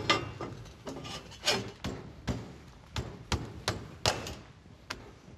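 Metal subframe crossmember knocking against the van's chassis rails as it is worked up into place between them by hand: a string of sharp knocks, about three a second, loudest at the start.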